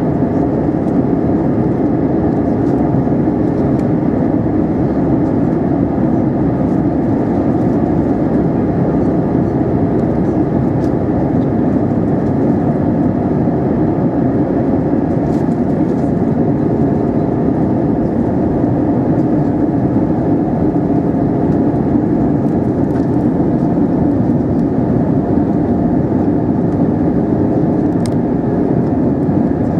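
Steady cabin noise inside a British Airways Airbus A320-232 on approach: the even rush of airflow and its IAE V2500 engines, heavy in the low and middle range with a faint steady hum running through it.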